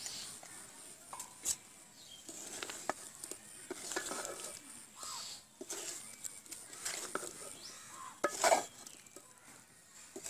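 Flat spatula stirring and turning chunks of potato and drumstick in a metal karai, with irregular scrapes and short knocks against the pan, the loudest about eight and a half seconds in.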